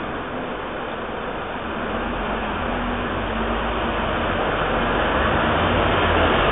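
Street traffic noise, with a vehicle's low engine rumble coming in about two seconds in and growing slowly louder.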